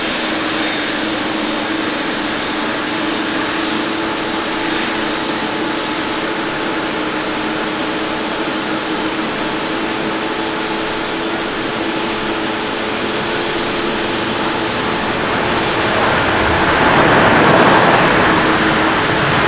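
Boeing 777 twin-engine airliner on its landing roll: steady jet engine noise with a low hum. The noise swells to a loud rush about three-quarters of the way through as the aircraft rolls past closest, then eases slightly.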